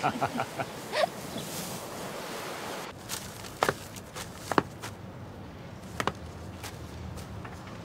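Slow footsteps of hard-soled shoes on a hard floor: a sharp single step roughly every second. Before them a soft, steady outdoor hiss cuts off about three seconds in.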